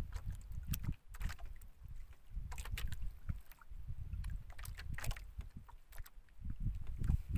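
Uneven low rumble of wind and water around a small boat, with scattered sharp clicks and rustles as hands handle small fishing gear.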